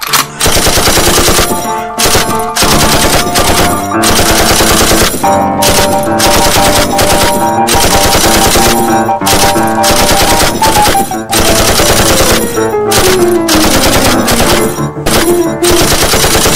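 Loud, fast-paced soundtrack music with rapid, dense drum hits under held notes; about ten seconds in, one note slides steadily down in pitch over several seconds.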